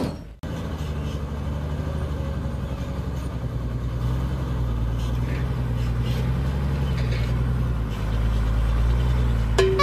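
Truck engine running steadily at low revs, a deep, even hum that starts after a brief break and grows a little louder about eight seconds in.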